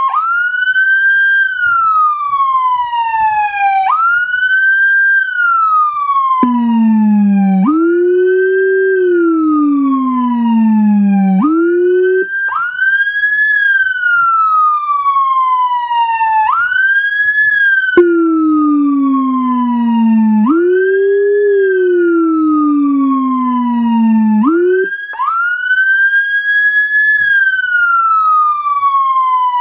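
Whelen Carbide electronic siren running through its tones: a woop that sweeps up quickly and falls slowly, then a wail cycling about every four seconds, slowing to a longer cycle near the end. Twice the sweep drops to a much deeper pitch, played through the Howler low-frequency siren speaker.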